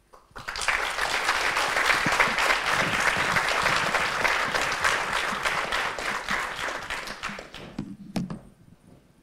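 Audience applauding, starting just after the start and dying away near the end.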